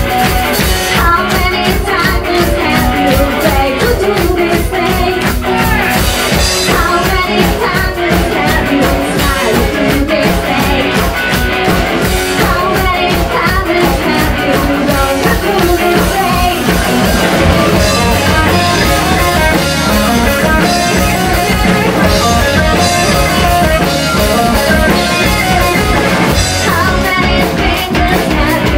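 Live rock band playing, with a woman singing lead over a steady drum-kit beat.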